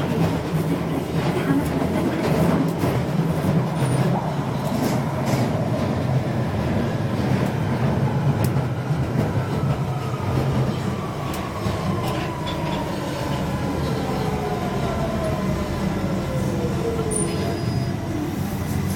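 London Underground 1992 Stock train running and slowing to a stop, its rumble overlaid with a whine that falls steadily in pitch through the second half as it brakes. A tapping noise comes from the train, heard as sharp clicks scattered through the run.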